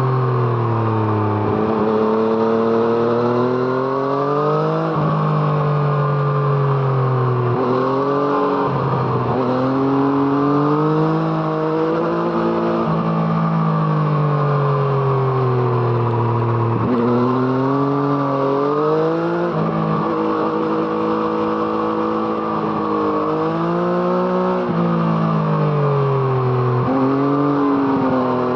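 Yamaha MT-09's 847 cc inline three-cylinder engine breathing through an Arrow Thunder exhaust while being ridden: the revs climb and fall over and over, with several sudden drops and jumps in pitch.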